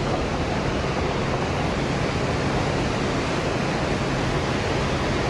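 Whitewater river rapids rushing, a steady, unbroken noise of fast water over rocks.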